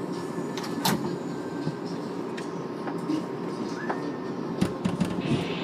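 Inside an R188 subway car running on elevated track: a steady rumble of wheels on rail, with sharp clicks and knocks from the wheels over rail joints, once about a second in and several in a row near the end.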